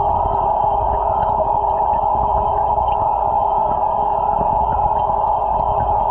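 Steady, muffled underwater hum and hiss inside an aquaponic fish tank, with a few faint ticks.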